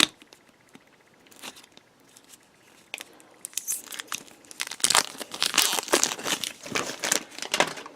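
Plastic toy packaging of a Shopkins blind-bag canister crinkling and rustling as it is handled, starting about three and a half seconds in after a sharp click at the start.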